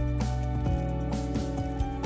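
Instrumental background music: held notes over a sustained bass, with a soft steady beat.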